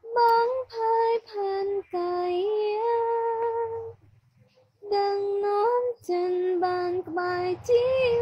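A high voice singing a melody in phrases of held, steady notes, with a short pause about four seconds in.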